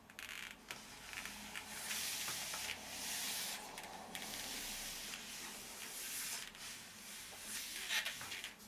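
Palms rubbing and pressing on a framed picture, pushing it onto adhesive tape on the wall: a faint, uneven rubbing hiss that comes and goes, with a few light clicks.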